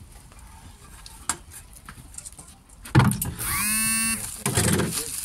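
A wooden board knocks down onto a table top about three seconds in, then gives one steady squeal as it is slid across the surface, followed by a short scrape.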